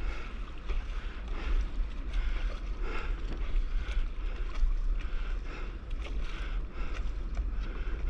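Water splashing and lapping against a paddleboard in quick, uneven bursts over choppy sea, with wind buffeting the microphone in a low rumble.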